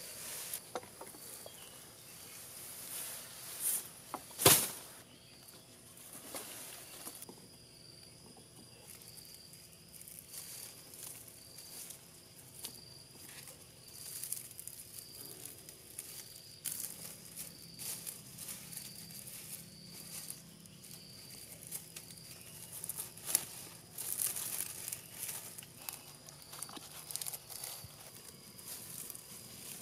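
Grass stalks rustling and crackling as they are handled and bound by hand onto a bamboo strip for a thatch panel, with one sharp snap or knock about four and a half seconds in.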